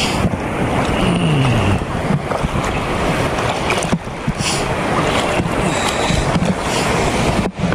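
Choppy sea water splashing and sloshing close by, under wind buffeting the microphone, in a steady loud rush that drops out briefly near the end.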